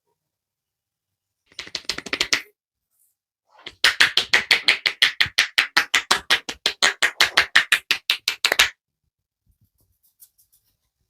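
Barber's hands striking a head in quick, even massage percussion strokes, about seven a second: a short run, then a longer run of about five seconds that stops suddenly.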